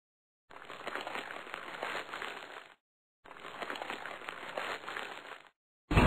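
Two stretches of crackling, rustling noise, each a little over two seconds long, with a short silence between them. A much louder sound starts right at the end.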